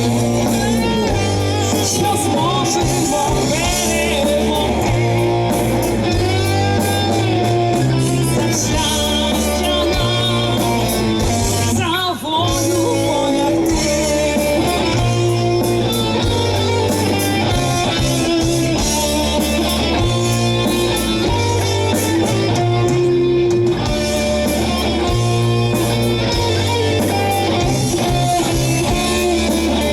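A rock band playing live: distorted guitars over a repeating bass line, with a singer's voice.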